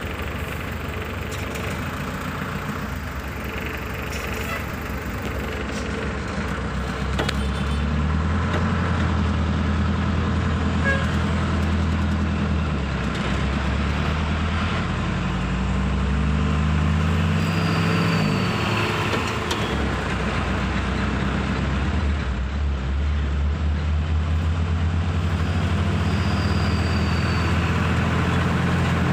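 Truck's diesel engine heard from inside the cab, running under load as the truck drives on. The engine note rises in steps and drops back a few times, and it grows louder after about seven seconds.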